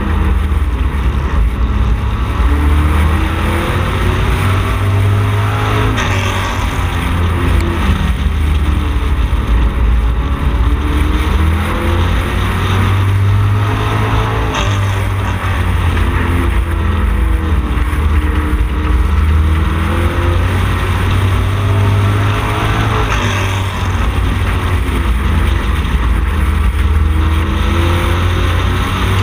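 Street stock Camaro's V8 engine at racing speed, heard from inside the car. Its pitch dips and climbs again about every eight or nine seconds as the throttle comes off for each turn and goes back on.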